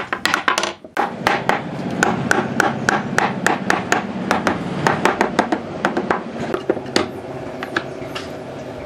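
Wooden knocks and clicks, about three a second, as pine rails are worked into the joints of a table frame, over a steady low hum.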